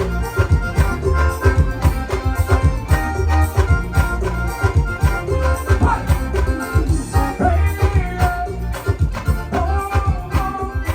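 Music with a steady, fast beat and heavy bass pulses.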